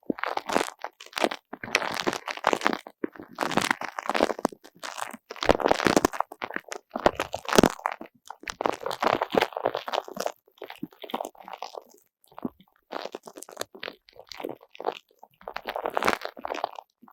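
A sticky, spiky squishy toy ball (uni ball) being squeezed and pulled apart close to the microphone: tacky crackling and crunching in irregular stretches of a second or two, with short gaps between.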